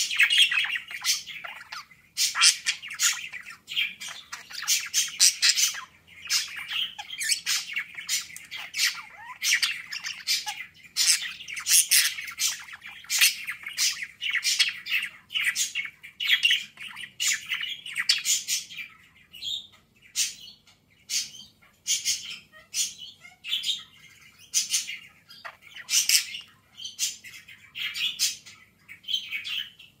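Male budgerigar chattering and warbling at its own reflection in a cage mirror: a fast, nearly unbroken stream of high chirps, clicks and short squawks.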